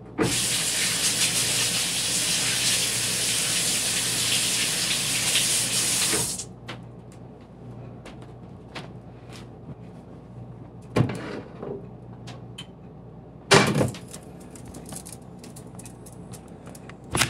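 Kitchen tap running in a steady stream into the sink for about six seconds, then shut off. Two sharp knocks follow later, the second the louder.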